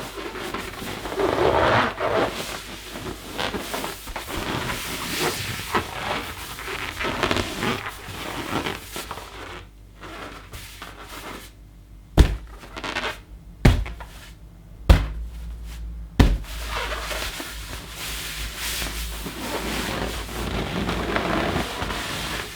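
A rubber balloon being handled and rubbed, giving a dense run of squeaks and creaks. In the middle come four sharp thumps on the balloon, each a second or so apart, then the rubbing and squeaking start again.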